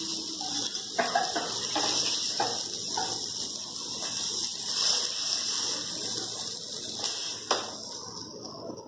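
Fish pieces sizzling in oil on a flat tawa, with scrapes and taps of a spatula against the pan as the pieces are lifted off. The sizzle thins out near the end once the tawa is empty.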